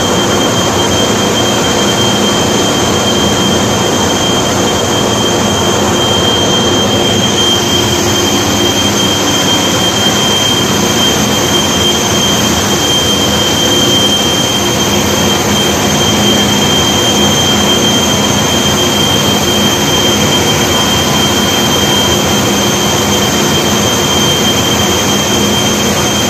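Fabric-dyeing machines running on a factory floor: a loud, steady machine noise with a constant high whine over a lower hum.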